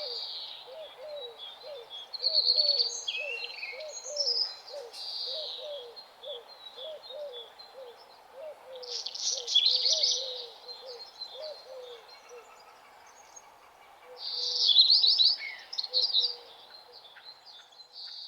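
Birds chirping and trilling in several high bursts, loudest about two, nine and fifteen seconds in. Beneath them runs a steady series of low, repeated calls, about two a second, that thin out after about twelve seconds.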